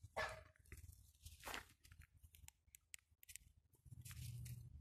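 Faint rustling and crackling of dry grass and undergrowth underfoot, with several short sharp clicks about two to three seconds in.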